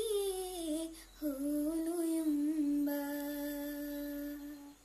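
A girl's solo singing voice finishing a Manipuri song: a short gliding phrase, then a long held final note from about a second in that stops just before the end.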